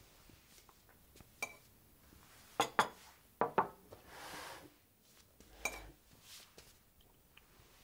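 Tableware clinking: a spoon, bowl and cup knocked together and set on a small table, heard as a handful of separate clinks, some with a short ring. There are a couple of quick double clicks in the middle and a soft swish about four seconds in.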